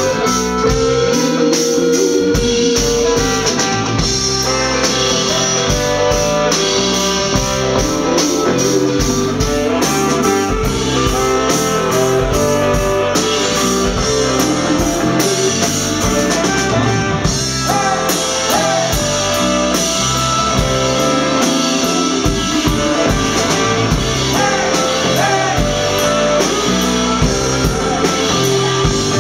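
Live soul band playing an instrumental passage, electric guitar out front over bass and drum kit, with bent guitar notes.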